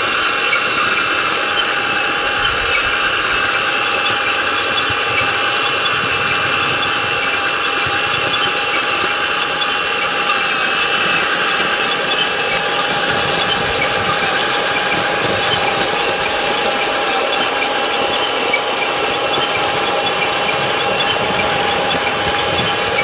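Remote-control toy backhoe loader running: a steady mechanical whir with a constant whine.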